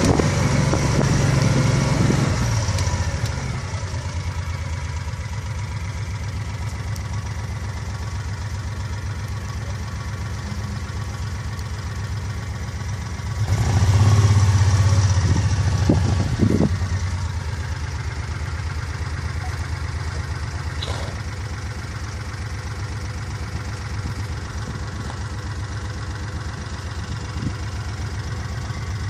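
Vehicle engine idling steadily, a low even hum that swells louder for a few seconds at the start and again about 13 seconds in.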